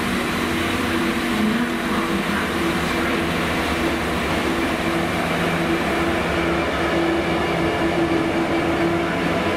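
Freightliner Class 66 diesel locomotive passing close by, its two-stroke EMD diesel engine running with a steady low drone.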